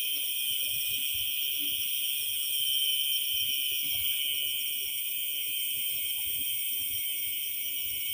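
A steady, high-pitched chorus of night insects trilling continuously in the grass, with faint rustling of grass stems being handled close by.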